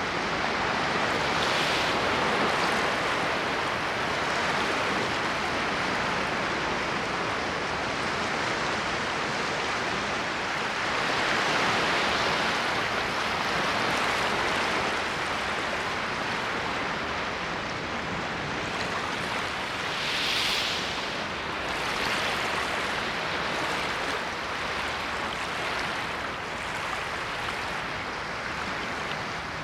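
Ocean waves washing on a shore, a continuous surf hiss that swells and eases, with louder breaking waves about 2, 12 and 20 seconds in.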